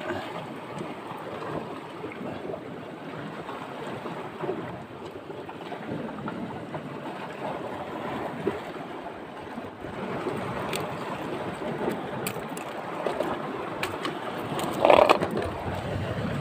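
Sea surf washing over shore rocks, with wind on the microphone, as an even steady noise. A brief louder burst stands out near the end.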